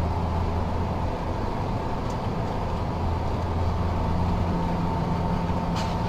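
Car driving, heard from inside the cabin: a steady low engine and road hum with a faint steady high tone. About four and a half seconds in, the engine note shifts.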